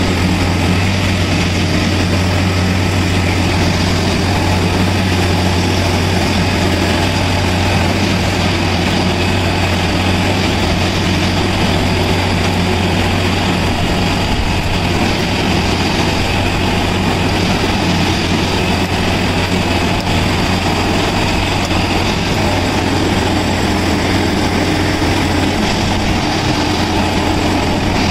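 Diesel engine of a Plasser Unimat track-tamping machine running steadily: a loud, constant low hum that holds at the same level throughout.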